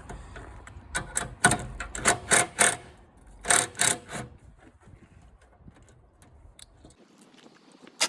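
Sharp clicks and knocks in three short clusters, about a second, two seconds and three and a half seconds in, like hard parts or tools being handled and knocked together during hands-on work.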